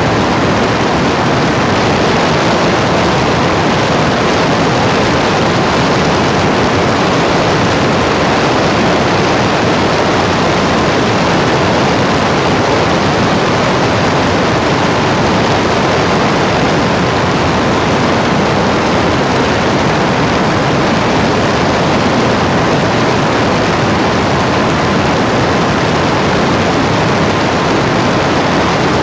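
Loud, steady rushing noise that never changes, with a faint thin tone held underneath it.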